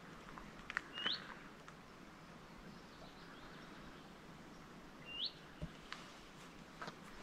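A small songbird's short, rising whistled call, given twice about four seconds apart, over a faint steady outdoor hiss with a few soft ticks.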